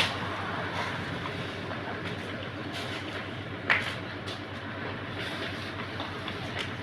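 Steady rumbling background noise with a few short, sharp clicks or knocks; the loudest comes just under four seconds in.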